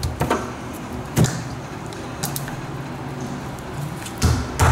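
Gloved fist knocking the caps for the gooseneck/fifth-wheel hitch holes into the floor of a pickup bed, seating them with sharp knocks: one just after the start, one at about a second, and two in quick succession near the end.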